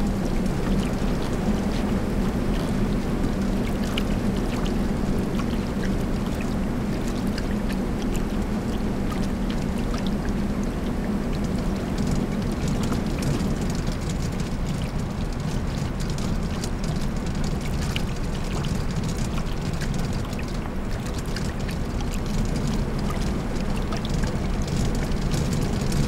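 Steady mechanical din of silk-reeling machinery in a steam-filled mill: a constant low hum under an even rushing noise, scattered with light clicks.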